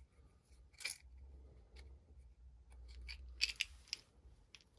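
Faint clicks and rustling of small craft supplies being handled on a tabletop, with a short cluster of sharper clicks about three and a half seconds in.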